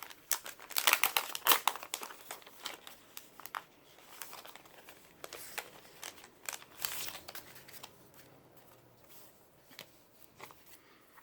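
Sticker sheets and their packaging being handled, crinkling and rustling in quick bursts, busiest in the first two seconds with another flurry about seven seconds in, then only a few faint ticks.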